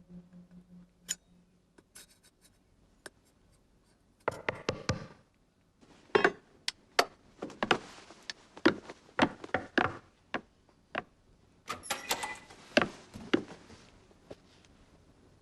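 A run of sharp, irregular clicks and knocks: a short cluster about four seconds in, then many more from about six to thirteen seconds in, with faint ticks between.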